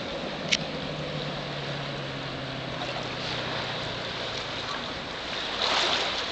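Jasper 4.3-litre marine engine in a runabout, running at speed as a low steady hum that fades away as the boat pulls off, under a haze of wind and water noise. There is a sharp click about half a second in, and a louder rush of noise near the end.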